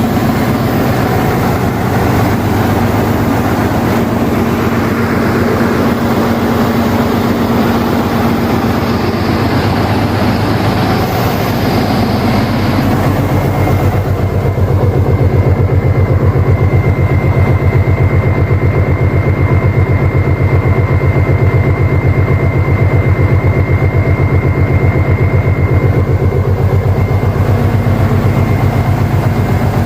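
Heavy diesel truck engine of an FNM (Alfa Romeo) truck running steadily with road noise. About halfway through, the sound shifts to a deeper, more even engine note with less hiss.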